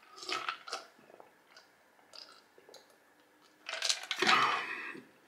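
A man drinking citrus soda pop from a mug: a few short slurping sips and swallows, then a louder, longer breathy slurp about four seconds in.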